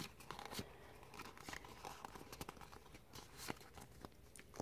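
Faint rustling and soft clicks of Pokémon trading cards being handled and sorted by hand, with scattered small snaps a few times a second.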